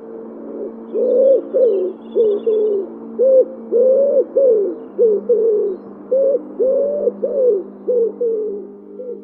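A dove cooing: a rapid string of about fifteen short, low coos starting about a second in, over a steady background drone.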